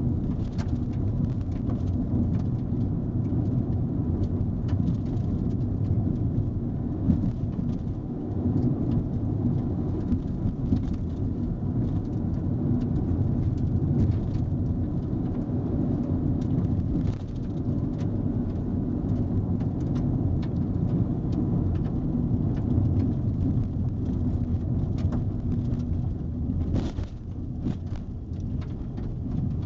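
Car driving on a gravel road, heard from inside the cabin: a steady low rumble of tyres on gravel with scattered clicks of small stones and bumps, and a brief louder rush near the end.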